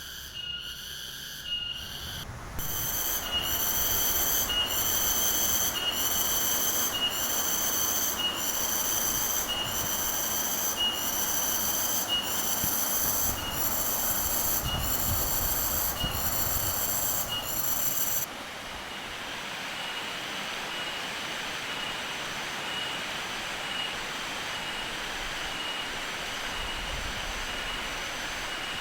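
Cicada (tonggeret) calling in a shrill, pulsing song of about one pulse a second. It starts a couple of seconds in and cuts off suddenly about 18 s in, over the steady rush of a fast-flowing river. A fainter insect keeps up a quicker pulsing call throughout.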